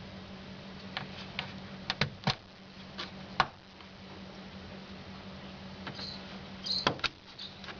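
Scattered light clicks and knocks, with a few brief squeaks about six seconds in, over a steady low hum.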